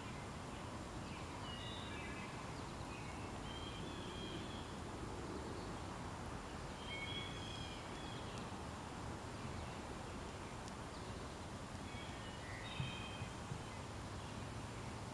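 Steady outdoor background noise with a small bird's short chirping calls, coming in several brief clusters. There are a few light ticks near the end.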